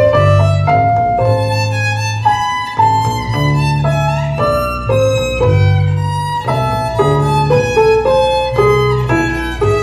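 Violin playing a melody of quick changing notes over low, sustained bass notes.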